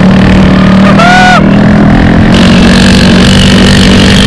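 Honda Dio scooter's single-cylinder engine running steadily with its silencer removed, a loud open-exhaust sound. A short pitched cry comes about a second in.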